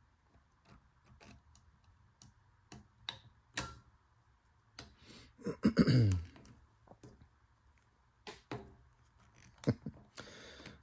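Piston ring expander pliers and a piston ring clicking and ticking as the ring is spread open and worked over the piston into its second groove, with one sharper click a little over a third of the way in. A short murmur of a voice about halfway.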